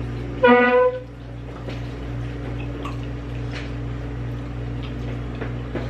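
One short, loud horn-like honk at a single steady pitch, about half a second long, just after the start, over a steady low hum.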